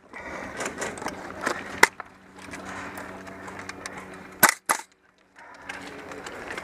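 Airsoft guns firing sharp, snappy shots over a steady background rustle: one shot a little under two seconds in, then two quick shots together about four and a half seconds in, with fainter pops in between.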